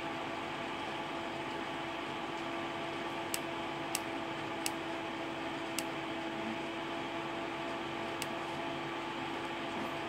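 Steady electrical or fan hum with a held low tone, broken by about five small, sharp clicks at uneven intervals through the middle: tactile push-buttons on a controller circuit board being pressed.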